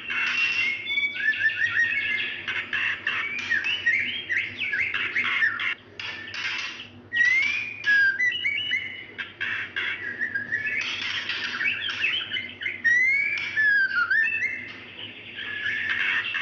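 Female white-rumped shama in breeding condition calling for a male: a continuous run of whistled notes sliding up and down, mixed with rapid chatter and harsh, scratchy notes.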